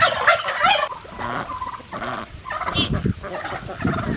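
Turkey gobbling, a series of rapid warbling calls, loudest at the start.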